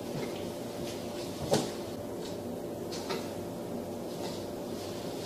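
Steady low hum with a few light clicks or taps, the clearest about one and a half seconds in.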